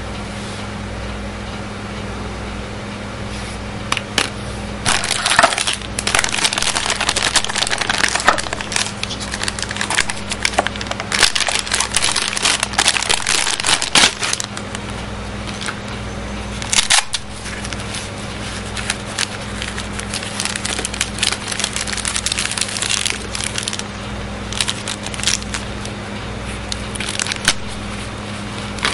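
Clear plastic packaging crinkling and crackling as it is handled, in long stretches: steady crinkling from about four seconds in until about seventeen seconds, then quieter, then more crinkling near the end. A steady low electrical hum runs underneath.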